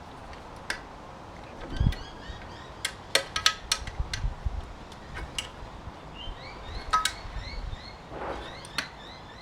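Scattered sharp clicks and clinks with a few dull thumps as chipper shredder parts and tools are handled during reassembly, with short repeated bird chirps in the background.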